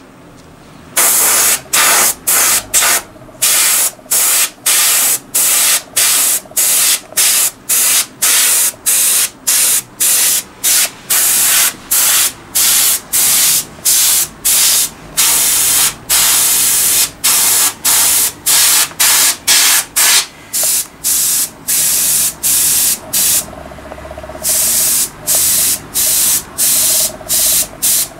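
Airbrush spraying in short, quick hissing bursts, about two a second, with a brief pause about 23 seconds in.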